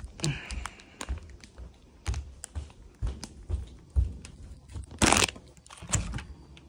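Plastic packaging of a bag of jelly-stick snacks crinkling in the hand, over soft steps about twice a second, with a brief louder rustle about five seconds in.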